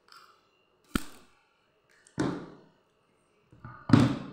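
Three knocks of hard-set, red sugar-coated apples against an enamel tray as they are handled, the last knock the loudest; the hard clack shows the sugar coating has set solid.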